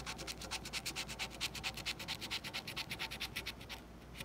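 Coin scratching the coating off a paper scratch-off lottery ticket in rapid back-and-forth strokes, about seven a second, pausing briefly near the end.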